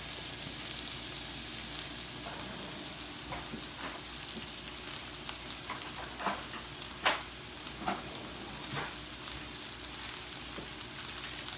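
Thick steaks searing in pecan oil in a very hot skillet: a steady sizzle, with a few sharp pops of spitting oil between about six and nine seconds in.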